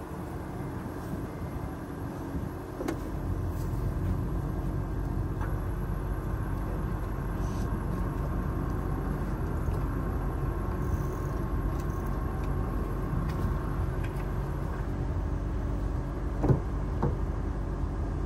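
Steady low rumble with a car door clunk about sixteen seconds in, as the hatchback's rear door is opened.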